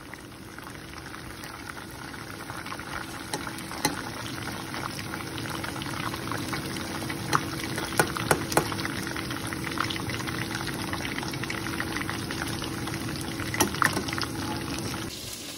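Batter-coated chicken pieces deep-frying in hot oil, a steady sizzle with scattered sharp pops and crackles, as they are lifted out with a slotted steel ladle to drain. A low steady hum runs underneath.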